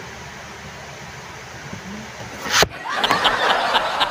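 A faint steady hiss. About two and a half seconds in, an abrupt cut brings in a much louder edited-in soundtrack of rapid sharp clicks and higher-pitched laughter-like sounds.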